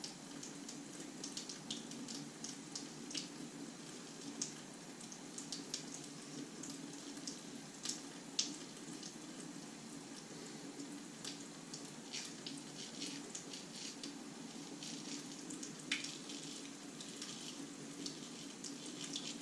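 Dovo Best Quality 6/8 straight razor scraping through lathered stubble on the cheek: a quiet, irregular crackle of short scratchy strokes, over a steady low hum.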